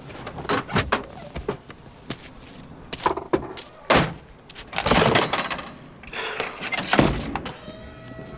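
A door being forced: a run of knocks and thuds, a sharp crack about four seconds in, a longer scraping rattle about five seconds in, and another heavy thud about seven seconds in.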